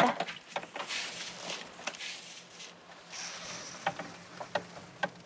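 Things being handled and rummaged through at a camper-van cabinet: scattered knocks and clicks with some rustling.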